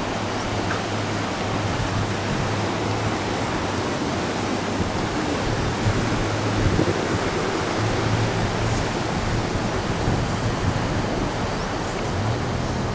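Steady rushing of a fast mountain river running white over rocks.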